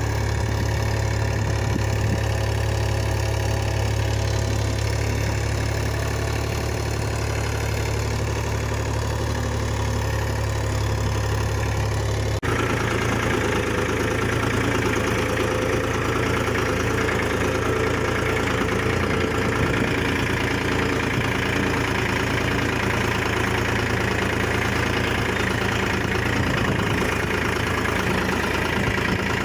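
Mahindra Orchard 305 tractor's diesel engine running steadily. About twelve seconds in the sound changes abruptly, as at an edit, and the engine runs on with a busier, harsher note.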